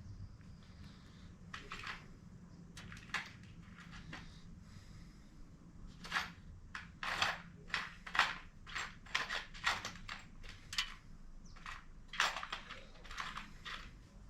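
A series of sharp clicks and crunches: a few scattered ones at first, then a run of about two a second through most of the second half.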